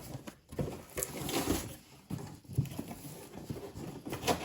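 Cardboard shipping box and its packing being handled and rummaged through: irregular light knocks and rustling.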